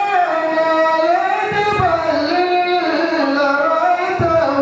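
A man singing solo into a microphone, holding long drawn-out notes that slide up and down in pitch, with a low thump twice.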